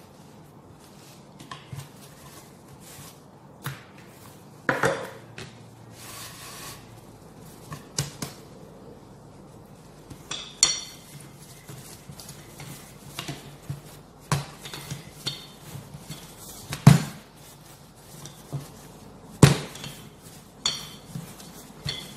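Kitchen clatter of pizza dough being rolled out: irregular knocks of a wooden rolling pin on a wooden board, with a few short metallic clinks from the baking tray. The two loudest knocks come in the second half.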